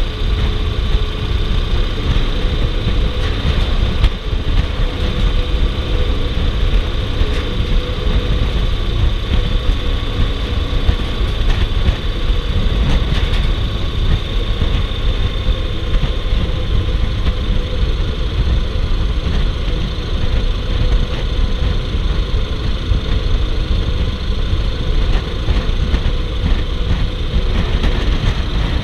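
Riding at a steady speed on a 2008 Yamaha Roadliner, its large air-cooled V-twin engine running, mixed with wind noise and the hum of the tyres on a steel grid bridge deck. The sound is a loud, even rumble throughout.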